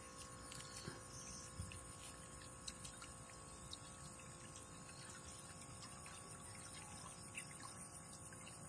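Faint steady hum of a toy tugboat's small electric (dynamo) motor driving its propeller while towing a loaded barge, with a few faint clicks.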